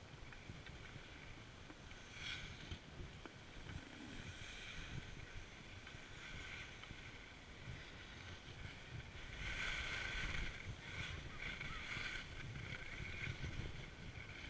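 Skis sliding and scraping over packed snow, with wind rumbling on the camera's microphone; the scraping gets louder about two-thirds of the way through.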